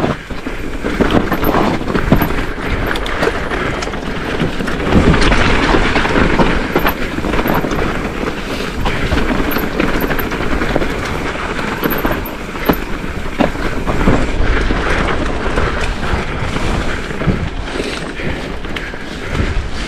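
Mountain bike ridden fast down a rough trail: tyres rumbling over rocks and roots, with the frame and chain rattling and many sharp knocks.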